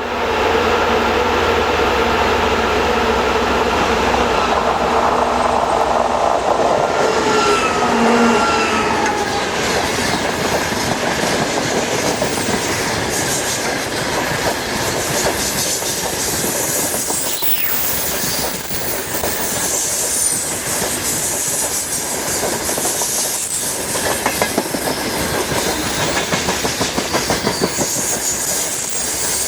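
2TE116U twin-section diesel freight locomotive passing at speed. Its engine drone drops in pitch as it goes by, about eight seconds in, then a long train of gondola wagons follows, clattering over the rail joints in a steady clickety-clack.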